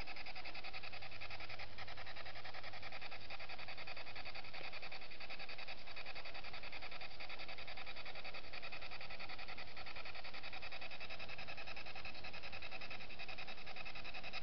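Ghost-hunting spirit box sweeping through radio channels: a steady hiss of static with a fast, even flutter as it skips from station to station.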